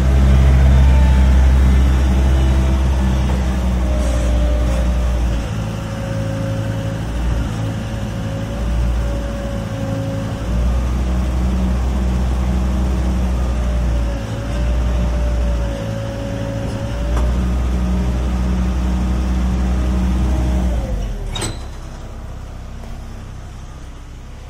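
Gehl 4510 skid steer engine running under changing load as the hydraulics work the grapple, with a steady whine that wavers in pitch. Near the end the engine drops to a quieter level and there is a single sharp clank.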